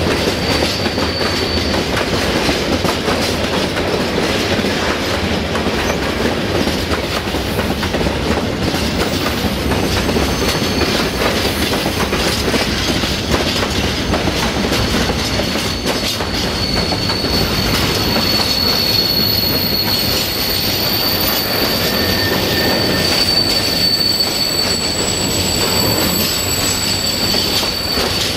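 Open freight wagons rolling past close by: a steady rumble of steel wheels on the rails with clicks as the wheels pass over the rail joints. A thin, high-pitched wheel squeal comes in briefly at the start, then again about a third of the way through and holds steadily until near the end.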